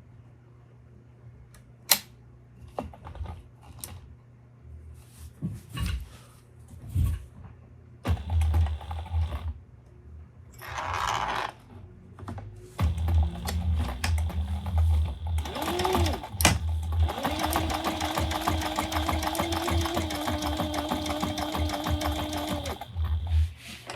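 Sailrite sewing machine stitching: a short run about 8 seconds in, then a long steady run from about 13 seconds to near the end with a fast, even needle rhythm and a steady motor hum. Scattered clicks and knocks come before the first run.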